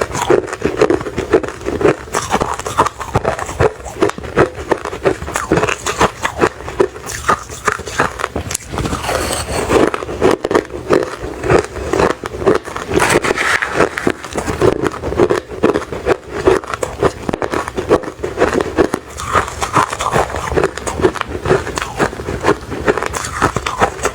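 A person biting and chewing refrozen crushed ice, heard close up: a continuous run of crisp crunches, several a second.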